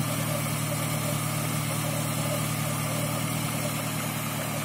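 Chevrolet Niva's engine idling steadily, heard with the bonnet open.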